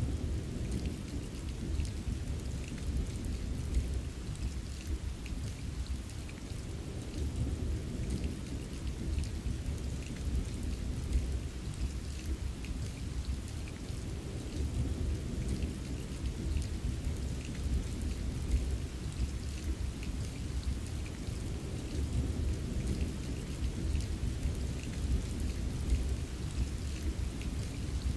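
Steady heavy rain with scattered drops ticking, over a continuous low rumble.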